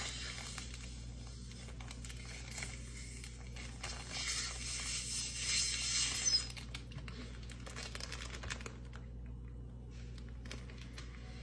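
Air being sucked out of a plastic zip-top bag through a drinking straw: a soft hiss of suction that grows stronger about four seconds in and stops about six and a half seconds in. Then the plastic bag crinkles and clicks as it is pinched and zipped shut.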